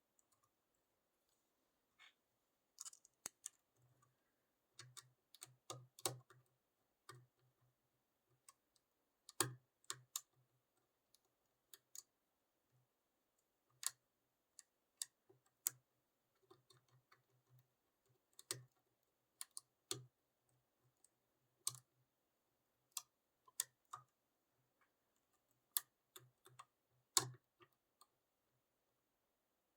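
Lock pick and tension wrench working in a six-pin pin-tumbler lock: faint, irregular clicks and ticks as the pick moves over the pins, some with a soft knock under them.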